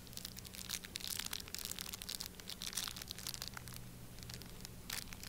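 A small shiny foil blind bag being crumpled, smoothed and pulled open by hand, making a faint, dense crinkling. The crinkling is thickest over the first three seconds or so and thins out towards the end.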